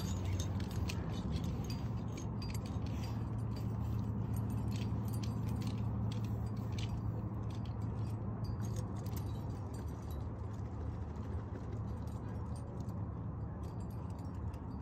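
Metal climbing gear clinking and jingling in short irregular clicks while rope is paid out, thinning out after about ten seconds, over a steady low rumble.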